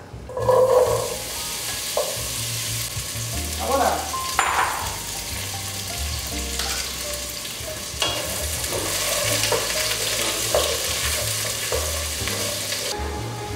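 Diced vegetables dropped into a hot pot, sizzling steadily as they fry, with a wooden spoon stirring through them. The sizzle cuts off shortly before the end.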